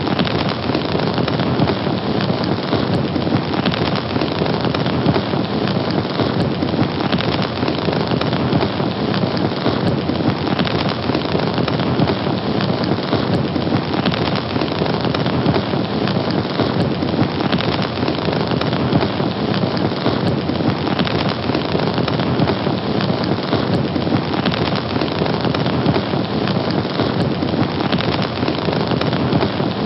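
Fire burning with a steady, dense crackling hiss.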